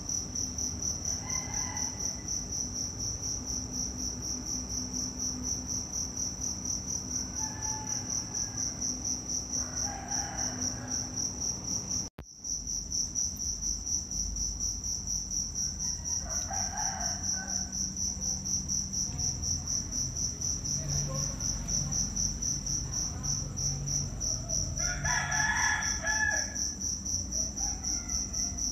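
Steady, high-pitched insect trill, rapidly pulsing and unbroken except for an instant's dropout about twelve seconds in. A few short, fainter sounds come now and then, the loudest near the end.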